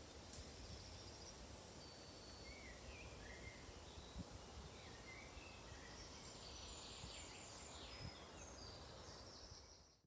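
Faint spring woodland ambience: several small birds chirping and trilling over a low steady hiss, with two soft low thumps, fading out at the end.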